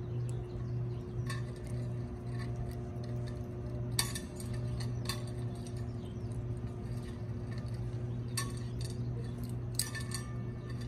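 Amazon parrot eating from a coconut-shell bowl, its beak giving scattered sharp clicks and taps against the shell, the loudest about four seconds in and a quick cluster near the end, over a steady low hum.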